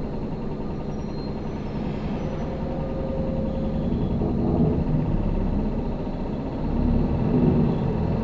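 Isuzu Erga non-step city bus (2TG-LV290Q3) heard from on board: its four-cylinder diesel runs with a steady low rumble and road noise, growing louder about halfway through and again near the end.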